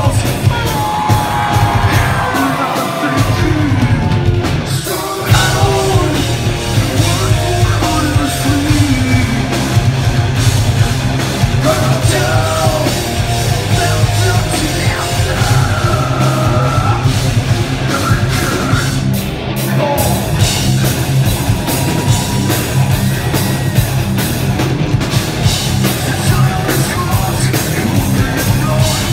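A hard rock band playing live and loud: distorted electric guitars, bass and a drum kit, with a singer's voice over the band.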